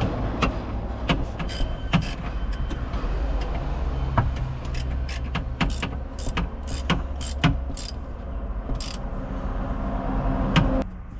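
Delica van's engine running with a steady low hum, overlaid by many irregular sharp clicks and knocks. Near the end the sound drops to a quieter, steadier hum.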